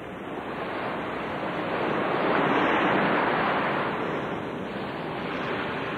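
A rushing, surf-like noise that swells to a peak about halfway through and then eases off, like a single wave washing in and drawing back.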